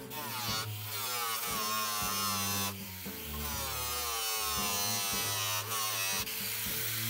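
A small electric cutting tool buzzing as it cuts along a rain-gutter pipe, its pitch wavering up and down under load, over background music.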